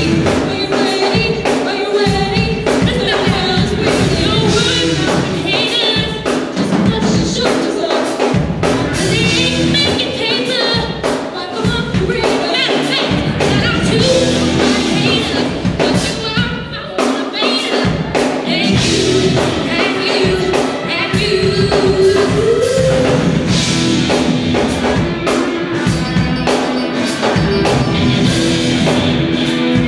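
Band music with singing over a steady drum beat, the singer holding long notes.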